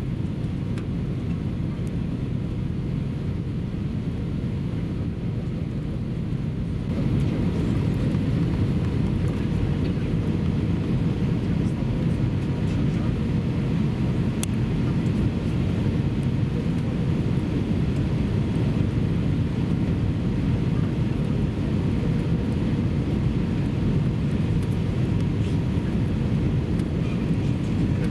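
Airbus A319 cabin noise on final approach, heard from a window seat over the wing with the flaps extended: a steady deep roar of the engines and rushing air. About seven seconds in it grows louder and brighter, then holds steady.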